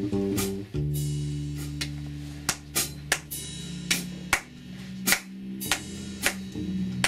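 Free acoustic improvisation: low plucked strings of a mandocello and guitarron ringing long low notes, a new one struck just under a second in. From about halfway, drum and cymbal hits come at an uneven pace.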